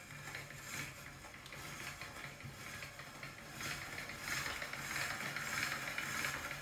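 Hand-cranked pasta machine turning as a sheet of egg pasta dough is rolled thinner between its steel rollers: a rapid, fine clicking of the crank gears, louder from about halfway through.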